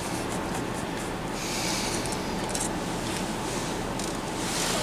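Screwdriver turning out a small screw on the radio's RAM board: metal rasping and scraping in two stretches, the second near the end, over a steady background hiss.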